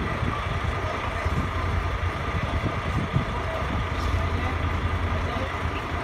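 An engine running steadily at idle: a continuous low hum with a faint steady whine above it.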